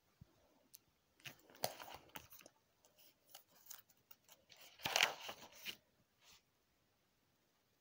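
Plastic nine-pocket card sleeves in a binder crinkling and rustling as pages are turned by hand, in two bouts, the second and louder one about five seconds in.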